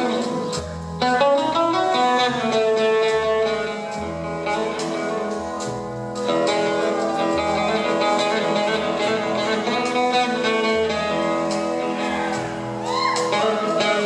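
Instrumental break in a country ballad, led by plucked guitar over a steady bass line, with a sliding melody line coming in near the end.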